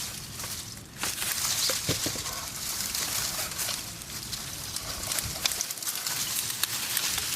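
Boxwood branches and leaves rustling and crackling irregularly as they are handled, with many small snaps and twig clicks.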